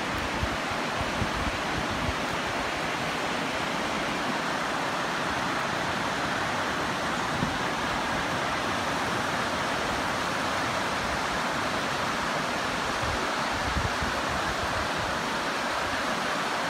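Steady rush of a river's white-water rapids pouring over rocks and a low dam spillway, with an uneven low rumble beneath.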